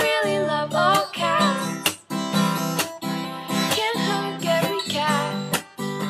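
Song accompaniment of strummed acoustic guitar, with a wavering melody line over it near the start and again in the second half.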